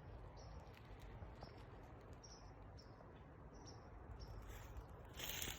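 Near silence with faint, short, high chirps repeating about once or twice a second from a small animal. A rustle comes in near the end.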